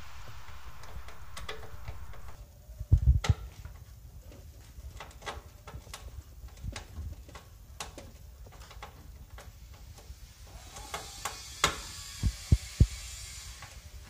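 Scattered clicks and knocks of hands handling cables and connectors inside a steel PC case, with a few louder thumps about three seconds in and again near the end. A steady low hum underlies the first two seconds.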